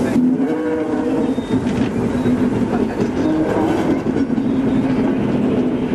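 Class 73 electro-diesel locomotive passing slowly at close range under its own diesel engine, a steady droning hum over the rumble of wheels on track.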